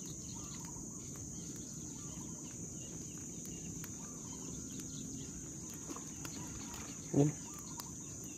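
Steady high-pitched insect chorus over a faint low background rumble, with a few soft ticks.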